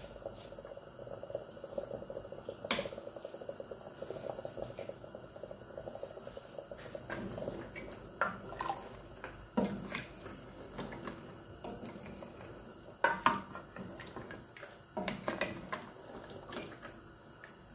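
Lamb trotter broth bubbling in a steel pressure cooker pot. A ladle then stirs and sloshes the liquid, knocking sharply against the pot a few times.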